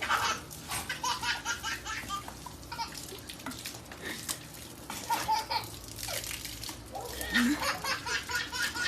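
A baby laughing in several runs of quick, high-pitched bursts.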